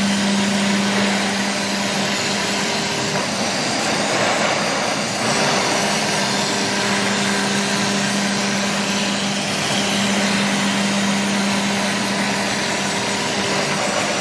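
ATC CNC router machining MDF: a steady spindle hum over the hiss of the cutter. The hum drops away between about three and five seconds in, then returns.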